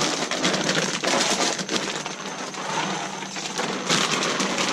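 A clear plastic bag of rye grain spawn being squeezed and crinkled by rubber-gloved hands to break up the grain, with dry straw rustling beneath; a steady, dense crackle.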